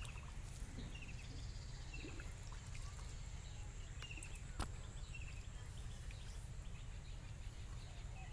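Outdoor pond-side ambience: a steady low rumble of wind on the microphone, faint water sloshing as someone wades in shallow water with a clay pot, and small birds chirping in short repeated calls. A single sharp click about halfway through.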